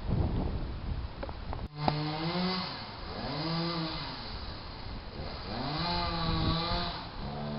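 Chainsaw revved up and down several times, its pitch rising and falling over about a second with each rev, after a short stretch of low rumbling noise that breaks off abruptly.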